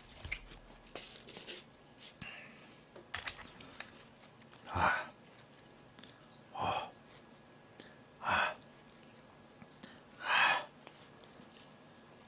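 A person takes four short, sharp breaths close to the microphone, about two seconds apart. Faint small clicks of chopsticks and food containers come before them.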